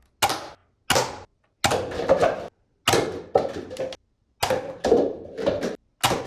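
A series of sharp clacks from a toy gun being worked, each dying away within half a second, coming one to two a second and often in close pairs.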